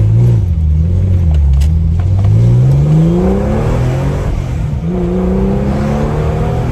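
Porsche 996 Carrera's 3.4-litre flat-six through a Design Tek stainless steel sports exhaust, accelerating through the gears, heard from the cabin with the windows down. The revs climb for a few seconds, drop at a gear change about four and a half seconds in, climb again, and drop at another shift near the end.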